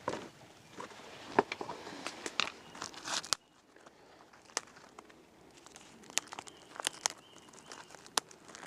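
Crunching, crinkling and sharp snapping of dry twigs and tinder being handled to make a fire. About a third of the way in the sound drops abruptly, leaving only occasional sharp clicks and snaps.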